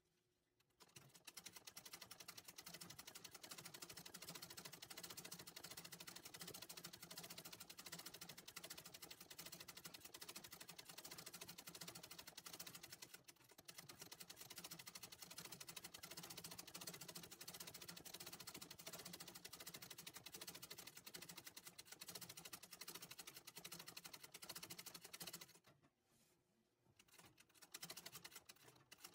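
Antique treadle sewing machine running fast, a faint rapid even clatter of the needle stitching embroidery fill. It dips briefly about halfway, stops for a second or so near the end, then starts again.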